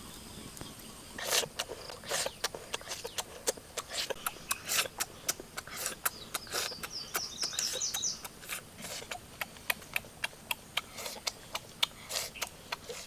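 Irregular sharp clicks and snaps, with a short run of high bird-like chirps about six seconds in.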